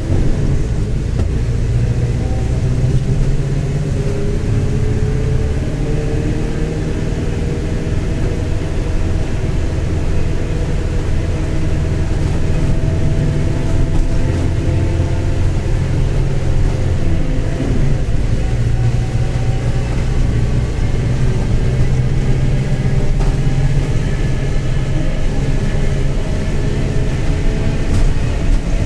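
Mercedes-Benz OF-1721 BlueTec 5 bus diesel engine running under way, a steady rumble with whining tones that slowly rise and fall with speed. A worn bearing is growling.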